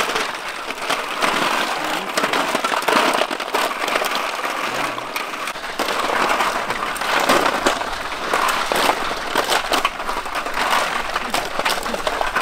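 Many snail shells clicking and clattering against each other and against a metal basin as handfuls of snails are picked through and sorted, a dense, unbroken run of small clicks.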